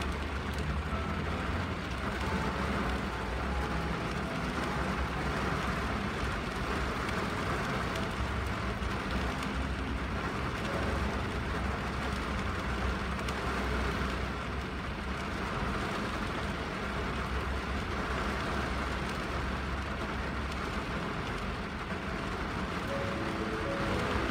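Steady rain falling on a car windshield over a constant deep rumble; a few melody notes come in near the end.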